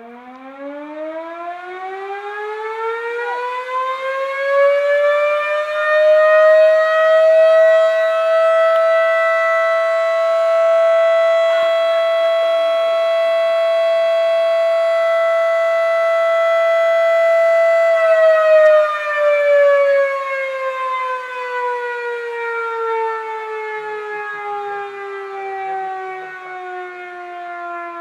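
Warning siren winding up over about six seconds to a steady wail, holding for some twelve seconds, then slowly winding down, still sounding at the end. It is the warning signal ahead of a coal-dust explosion test.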